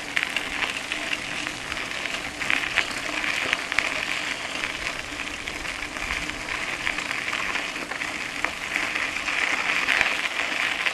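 Bicycle tyres rolling over a loose gravel road: a steady crackling hiss with many small clicks as the bike jolts over the stones.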